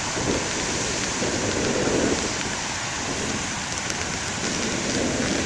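Heavy ocean surf: a steady rush of breaking waves that swells a little about two seconds in, with wind on the microphone.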